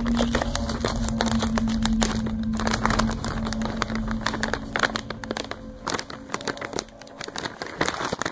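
Plastic bag of Alpo Dental Chew dog treats crinkling and rustling as hands work at it, a dense run of quick irregular crackles. A steady low hum sits under it for the first few seconds, then fades.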